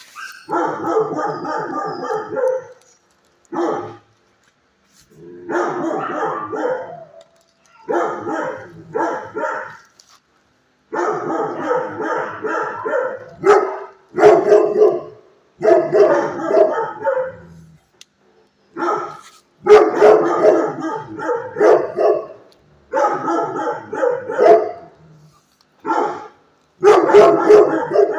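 Shelter dogs barking in about ten bouts of one to two seconds each, with short pauses between the bouts.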